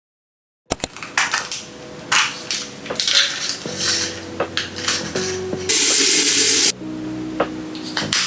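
Dishes and cutlery clattering, with a loud hiss lasting about a second around six seconds in, over faint background music.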